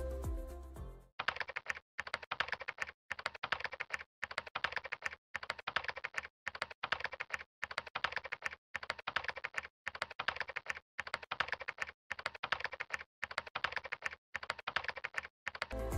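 Computer-keyboard typing sound effect: rapid runs of key clicks broken by short pauses about once a second. Music fades out in the first second and comes back just at the end.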